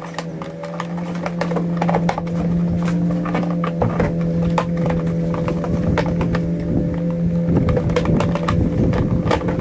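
Clicks, knocks and rattles of hands handling the plastic housing and controls of a Honda EU2000i inverter generator, over a steady low hum. The clicks begin about a second in and go on irregularly.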